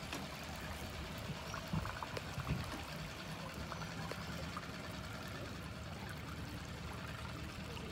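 Water trickling and splashing along the hull of a small sailboat under way, over a steady low hum. A few short, louder sounds come about two seconds in.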